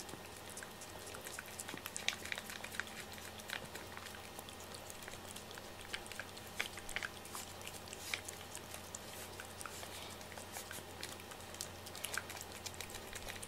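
Cat licking and eating a lickable paste treat from a small ceramic dish: a quiet, irregular run of small wet smacking clicks.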